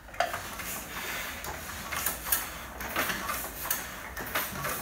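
Heidelberg platen press running, its mechanism clacking in a fast, regular rhythm of roughly two to three strokes a second over a steady mechanical clatter.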